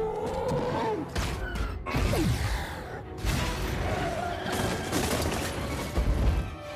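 Action-film fight sound effects: a dense run of heavy crashes, metal smashes and thuds from a brawl between the Hulk and the Hulkbuster armour, over deep rumble, with a few short grunts or growls.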